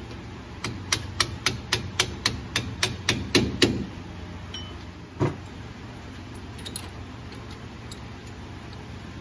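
A hammer tapping the differential carrier into a Ford Super Duty rear axle housing, about a dozen quick taps at roughly four a second that get louder toward the end, then one heavier knock about two seconds later. This is a stage of seating the carrier with its shims during gear setup.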